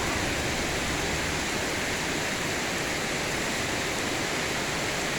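Heavy rain falling steadily in a thunderstorm, an even hiss with no thunderclap.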